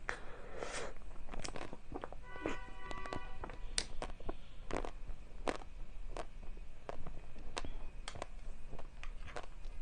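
Close-miked eating sounds: a string of sharp clicks, taps and bites, as of a spoon and mouthfuls of dessert, with a brief pitched tone about two seconds in.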